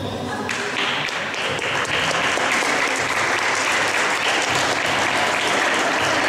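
Applause: many people clapping, starting about half a second in and keeping on steadily.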